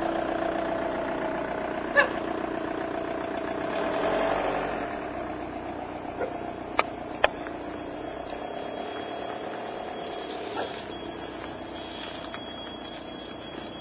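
Electric Jeep conversion's drive system humming steadily, the hum fading through the middle, with a few sharp clicks about two seconds in and twice close together near the middle. A thin high whine comes in near the end as the Jeep starts to move.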